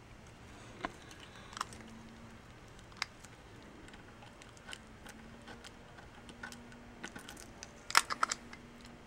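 Faint, scattered clicks and taps of a utility knife and fingertips working blue masking tape over the badge on a sparkle-wrapped drum shell, with a quick cluster of louder clicks near the end.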